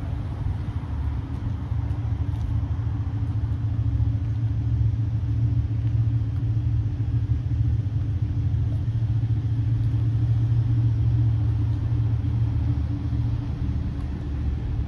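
Ducati Monster's 937 cc Testastretta V-twin idling steadily.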